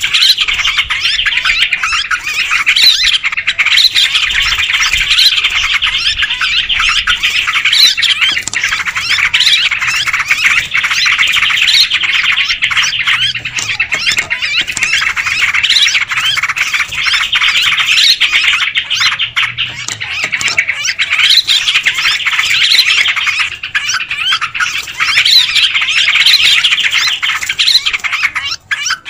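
Yellow-vented bulbuls (trucukan) calling together in a dense, continuous, noisy chatter, with sharper rising notes recurring every second or two. A bird-lure recording, played to draw in wild bulbuls.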